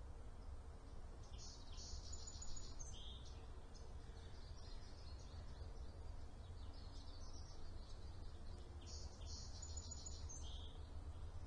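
A bird sings the same short, high trilled phrase twice, about seven seconds apart, over a steady low hum.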